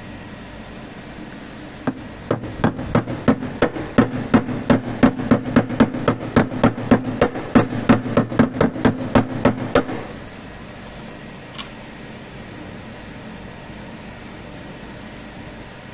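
Rapid series of hammer blows on sheet metal, about four or five a second for some eight seconds, typical of panel beating on a car body panel. The blows start about two seconds in and stop abruptly near the end of the run, over a steady background hum.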